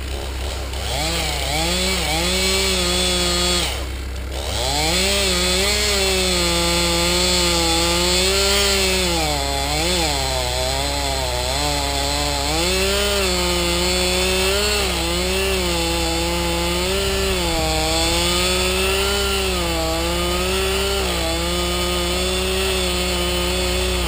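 Two-stroke chainsaw running hard and cutting wood, its pitch sagging and recovering again and again as it loads up in the cut, with a brief let-off a little under four seconds in. A compact track loader's engine idles low and steady underneath.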